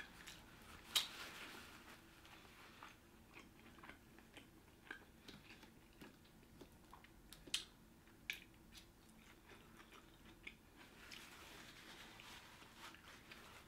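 Quiet close-up chewing of a sushi roll, rice and seaweed, with soft scattered mouth clicks and a few sharper clicks.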